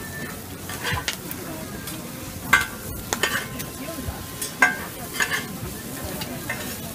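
Metal spatulas scraping and clanking on a hot flat-top griddle as noodles and cabbage are chopped and tossed, over steady sizzling. The sharpest clanks ring briefly, about two and a half seconds in and again a little before five seconds in.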